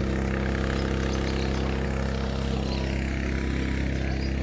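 An engine or motor running steadily at a constant speed: a low, even hum that does not change in pitch.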